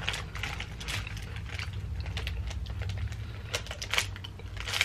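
Soft clicks and crackles of someone chewing an Arnott's Tim Tam chocolate biscuit and handling its packaging, with sharper crackles coming thicker in the last second.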